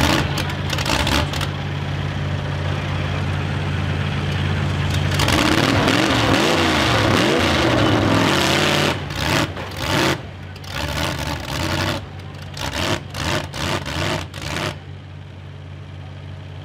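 Full-size demolition derby car engines idling, with one engine revving up and down for a few seconds near the middle. A run of loud, short noise bursts follows, then the idling goes on more quietly near the end.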